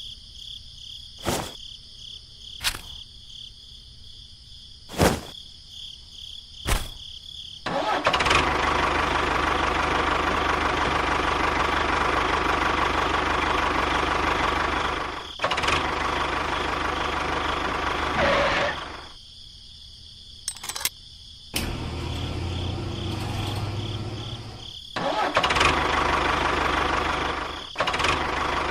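A few sharp clicks, then a motor running in long loud stretches with brief stops in between.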